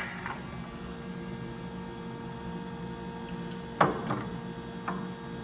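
Steady electrical hum with a few sharp metal knocks, the loudest about four seconds in, as a bolt and washers are worked through a car's upper control arm mount.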